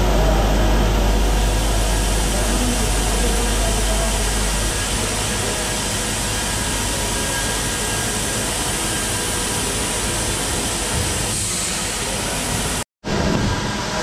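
Steady machinery noise in a food-processing hall: an even hiss with a faint steady hum from the plant's stainless-steel processing equipment. A deeper hum underneath stops about a third of the way in, and the sound cuts out for a moment near the end before the noise resumes.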